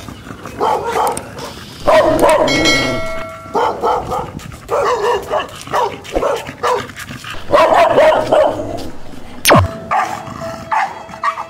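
Dogs barking repeatedly in short runs, set off by a strange dog walking past their houses. There is a quick falling whoosh about nine and a half seconds in.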